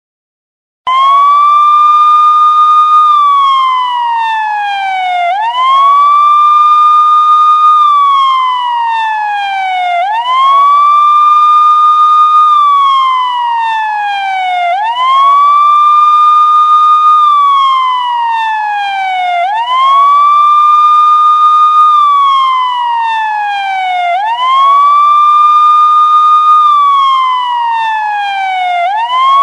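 Police siren in a slow wail. Each cycle climbs quickly, holds the high note briefly, then slides slowly back down, repeating about every four to five seconds. It starts about a second in.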